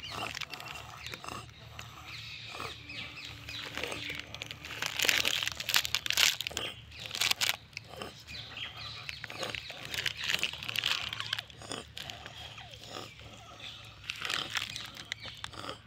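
Rhesus macaques moving about on dry leaves and twigs: scattered crunching and rustling mixed with short animal sounds, loudest about five to eight seconds in.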